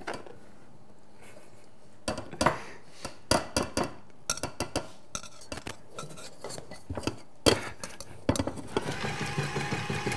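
A metal utensil scraping and clinking against a stainless steel mixing bowl as a soft butter mixture is scraped out into a small ceramic bowl, in irregular knocks with one sharper clank. Near the end a steady motor hum starts as the stand mixer runs.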